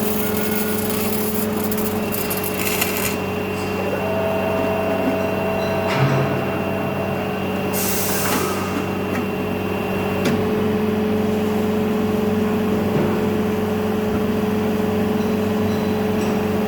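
Automatic welding machine and factory machinery running with a steady hum and constant whine, and a short hiss of released compressed air about eight seconds in.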